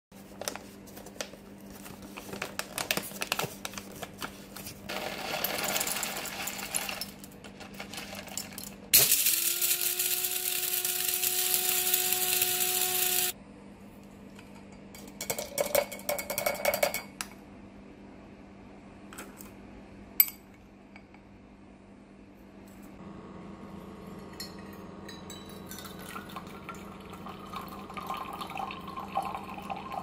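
A Hamilton Beach electric blade coffee grinder spins up and grinds beans for about four seconds, then stops abruptly. Around it come bag rustling and clattering as the grinder and its lid are handled. Near the end a single-serve coffee maker starts brewing with a steady hum, and coffee streams into a stainless steel tumbler.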